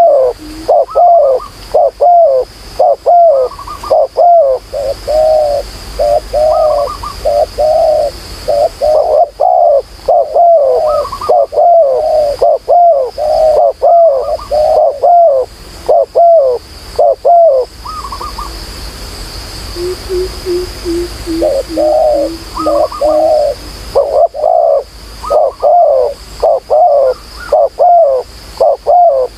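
Spotted doves cooing. A close bird repeats quick coo phrases over and over, stops for a few seconds past the middle while a lower, softer run of coos is heard, then starts again. A thin, steady high whine runs underneath.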